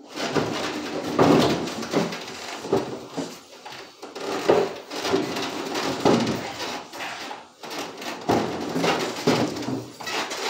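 A 750 lb upright piano carried down a flight of stairs on a mover's back. Wood creaks, rubs and knocks in irregular bursts about once a second as it is stepped down.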